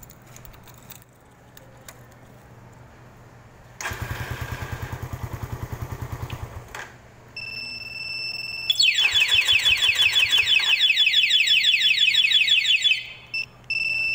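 A motorcycle alarm siren sounds loudly for about four seconds in a fast, repeating sweeping warble, with a steady high beep shortly before and after it. Earlier, a rapid mechanical pulsing runs for about three seconds.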